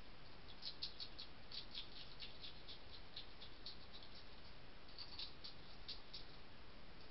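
European hedgehog chewing dry food from a dish: a fast, irregular run of faint crisp crunching clicks, pausing briefly before picking up again.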